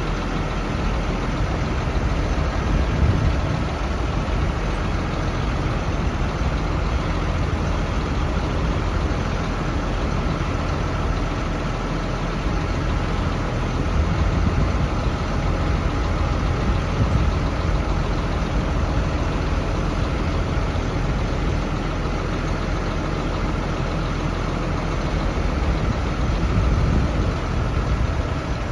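1997 Isuzu FTR dump truck's diesel engine running steadily at idle while the dump bed is raised.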